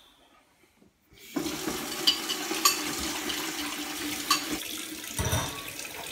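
Kitchen mixer tap turned on about a second in, water running steadily into the sink as a ceramic bowl is wiped under the stream with a cloth, with a few light clinks. It briefly gets louder about five seconds in.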